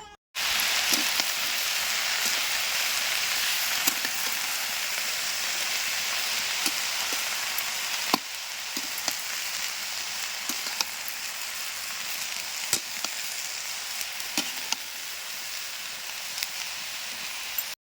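Chopped cabbage frying in hot oil in a pan: a steady sizzle with scattered sharp pops, easing a little about eight seconds in.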